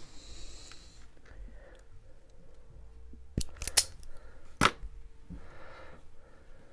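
Small hand wire cutters working thin hookup wire as insulation is stripped: a brief scrape at the start, then a few sharp snipping clicks in the middle.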